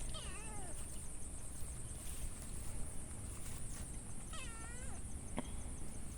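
Domestic cat meowing twice: a short meow right at the start, then a longer one that rises and falls about four seconds later. A steady high-pitched whine runs underneath.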